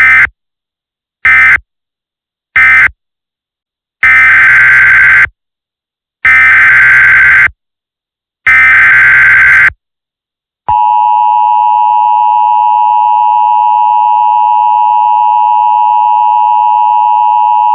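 Emergency Alert System tones: three short end-of-message data bursts, then three longer SAME header data bursts about two seconds apart, then the steady two-tone attention signal for about eight seconds, marking the end of one alert and the start of the next.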